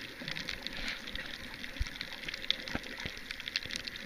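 Sea water sloshing around the camera in shallow water, with a dense fine crackle throughout and a few soft low thumps.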